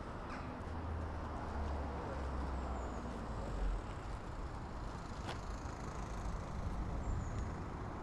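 Outdoor street ambience: a steady hiss over a low rumble of distant traffic, with a few faint short bird chirps. A single sharp click comes about five seconds in.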